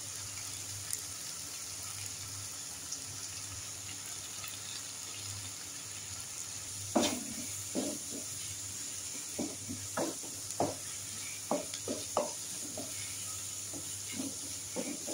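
Chopped onions and tomatoes sizzling in oil in a non-stick kadai, a steady hiss. From about seven seconds in, a wooden spatula knocks and scrapes against the pan at an uneven pace as the masala is stirred.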